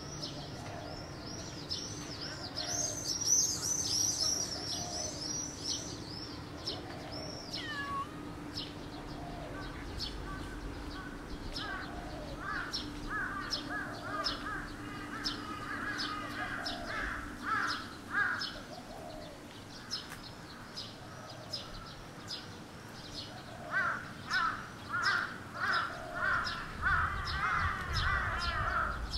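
Birds calling: a quick series of high arched chirps for the first several seconds, then runs of harsher repeated calls, several a second, around the middle and again near the end.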